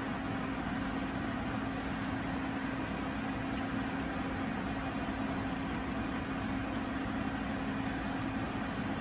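Steady machine hum with one low, constant tone and an even hiss around it, like a small fan motor running.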